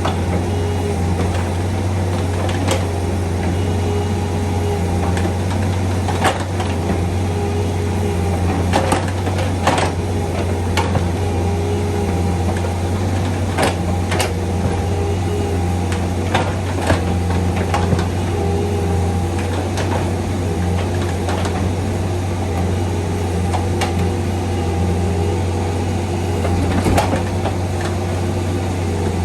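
Bobcat 341D mini excavator's diesel engine running steadily, with sharp clanks and knocks now and then.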